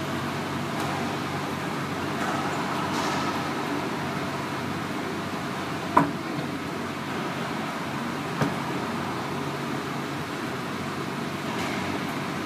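Two sharp smacks of a racquetball, about two and a half seconds apart, the first louder, over a steady background hum in the enclosed court.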